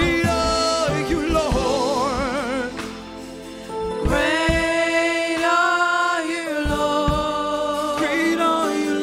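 Gospel worship team singing together in harmony with band backing, long held notes with vibrato. The singing eases off quieter for about a second around three seconds in, then swells back up.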